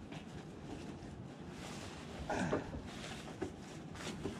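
Quiet handling of camping gear: faint rustling, a brief soft sound about halfway through, and a couple of light clicks near the end.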